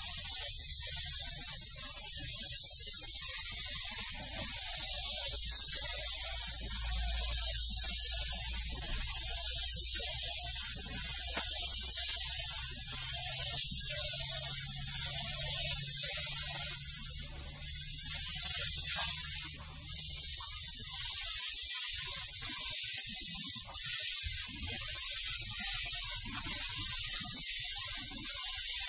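Steady, loud, high hiss of spray-painting equipment, cutting out briefly three times in the second half. A low machine hum runs beneath it and stops about twenty seconds in.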